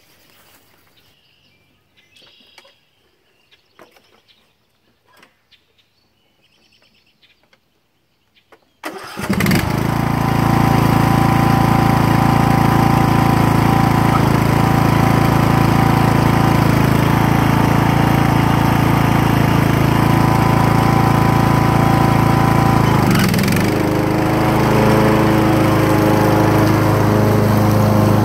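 Ariens lawn tractor's 19.5 hp Briggs & Stratton Intek XRD 500cc single-cylinder engine starting about a third of the way in, catching at once, then running steadily. A few faint knocks come before it. Its note changes late on, as the tractor moves off.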